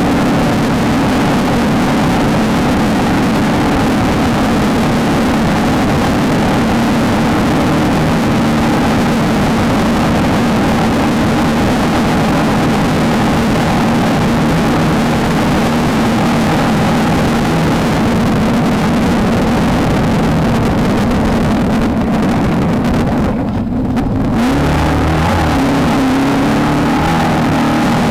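Off-road race car engine running hard at steady high revs under a constant wash of wind and road noise. About two-thirds of the way through the noise briefly dips, then the engine note comes back with its pitch stepping up and down.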